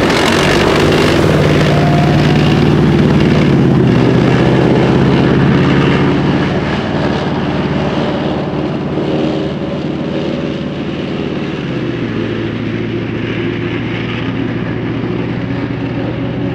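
CV90 tracked infantry fighting vehicle driving past: its diesel engine running with a steady low hum and the running gear of its tracks. The sound is loudest for the first several seconds, then drops as the vehicle moves away, and the engine note falls a little about twelve seconds in.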